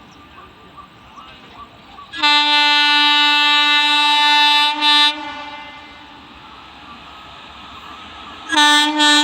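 Indian Railways electric locomotive's air horn. It gives one long blast of about two and a half seconds, then a short one, and two more short blasts near the end. Between the blasts the passing train can be heard running.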